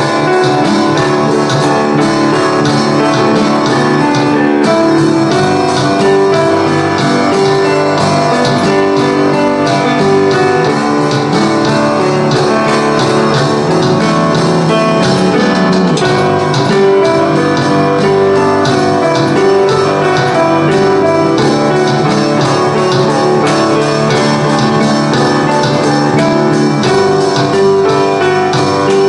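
Rock band music played on piano, bass guitar and drum kit, with sustained piano chords over a bass line and a steady beat of cymbal hits.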